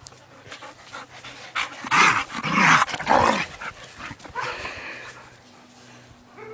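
Dogs play-fighting, growling in rough bursts that are loudest about two to three and a half seconds in, with a shorter burst a second later.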